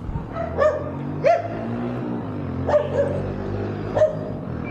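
A dog barking, about five short single barks spread a second or so apart, over a steady low engine hum from idling motorcycles.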